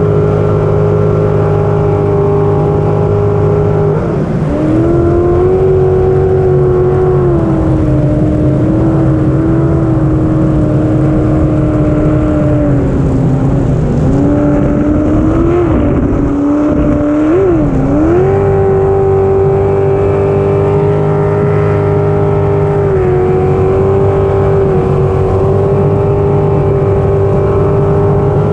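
Racing jet boat engine heard from onboard, running hard at speed with a steady note. The pitch drops about four seconds in as the throttle eases, wavers with quick blips between roughly 14 and 18 seconds, then climbs back up and holds.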